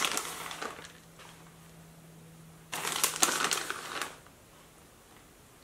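Plastic bag of shredded cheese crinkling as it is shaken and squeezed over the bowls, in two bouts: one in the first second and a longer one about three seconds in.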